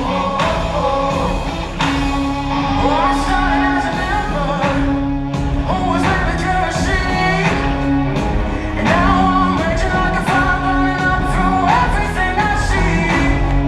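Loud show music with a singing voice over an instrumental backing and steady held bass notes.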